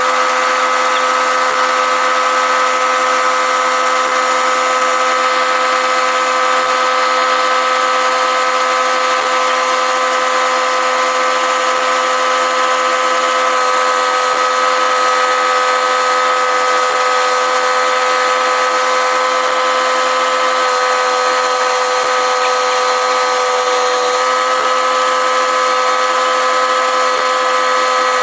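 A woodworking power tool running at a constant speed, a steady whine with no change in pitch or level.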